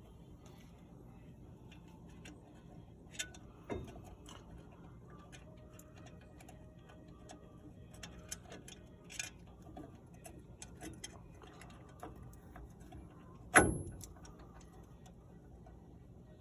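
Hand tools and metal brake parts clicking and clinking while a new wheel cylinder is fitted to a drum-brake backing plate. There are two sharper knocks about 3 to 4 seconds in, and one loud metallic clank with a short ring near the end.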